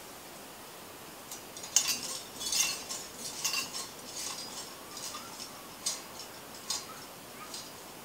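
Thin metal leaves of a handmade sculpture plant clinking lightly against each other as the plant, pushed by hand, sways on its wire stem. The clinks start about a second and a half in, come thickest for the next two seconds, then fall to scattered single clinks that die away near the end.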